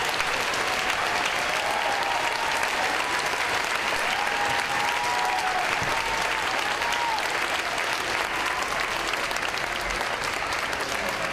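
Audience clapping steadily after a school band's performance, with a few voices calling out over it in the first several seconds.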